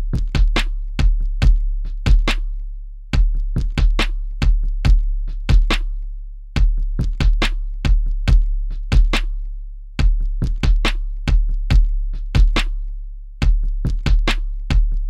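Electronic drum-machine beat: sharp, snappy percussion hits over a deep booming bass kick with long decays, the pattern repeating about every three and a half seconds.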